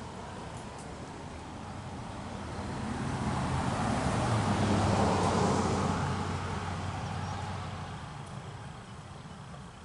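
A vehicle driving past: a low engine hum and rushing noise that swell and then fade, loudest about five seconds in.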